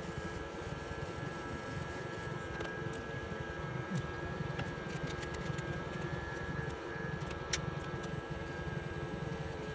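Steady whir of a nail dust collector's fan motor running, with a scatter of light clicks and taps in the middle.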